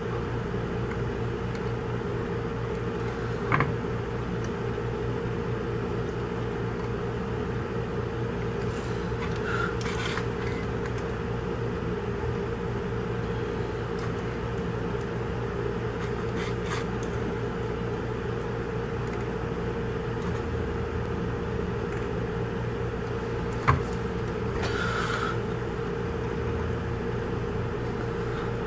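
A steady machine hum, like a fan or small motor running, with two sharp clicks and a couple of brief soft hisses.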